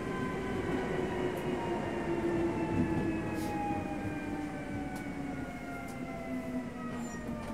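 Interior running sound of a Hankyu 7000 series car, heard above the motor bogie: a low rumble of wheels on rail, with a whine of several tones from the traction motors and gears. The whine falls slowly and steadily in pitch as the train slows, with a few faint clicks.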